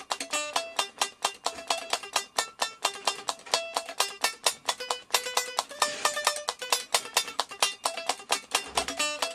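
Electric guitar played with fast picked single notes, a steady run of several notes a second.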